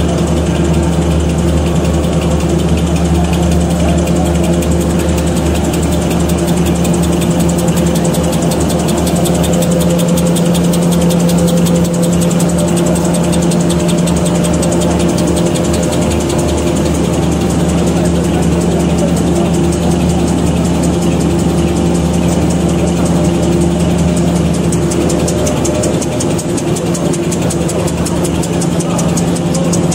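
Automatic V-fold hand towel paper machine running steadily: a constant mechanical hum with a fast, even clatter.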